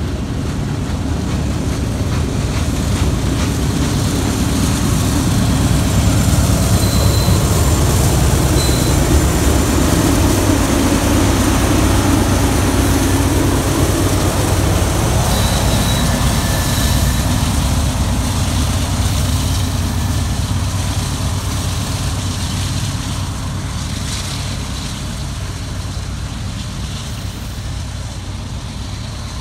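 Loaded coal train passing: a steady low rumble of hopper-car wheels on the rails and a Norfolk Southern diesel locomotive's engine. It is loudest around the middle and fades toward the end, with a few brief high squeaks.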